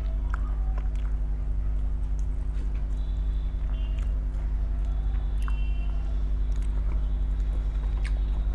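A person chewing and biting food close to the microphone, with scattered small mouth clicks, over a loud steady low hum.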